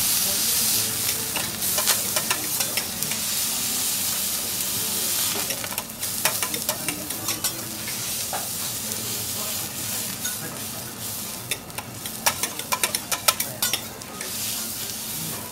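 Steel spatula and fork scraping and clicking on a hot teppanyaki griddle over a steady sizzle. The sizzle eases off gradually, and the metal clicks come in clusters about six seconds in and again near the end.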